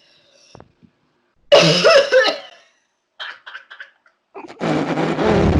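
A person in a hard coughing fit, trying to hawk up phlegm. There is one loud hacking cough with some voice in it about a second and a half in, a few short rasps, then a long harsh hawking of the throat near the end.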